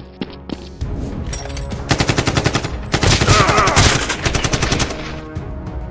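Rapid automatic gunfire, two long bursts of quick shots at about ten a second, beginning about two seconds in and stopping shortly before the end.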